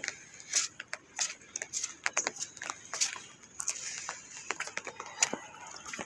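Raindrops tapping irregularly on an umbrella overhead, over a faint steady hiss of light rain.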